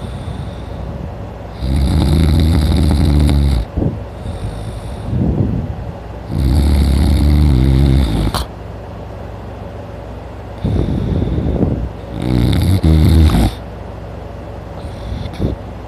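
A man snoring loudly in heavy sleep. Three loud snores, each about two seconds long, come roughly every five seconds, with softer snores between them.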